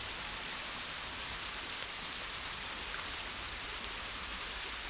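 Steady hiss of a small gas camp burner with a few faint crackles.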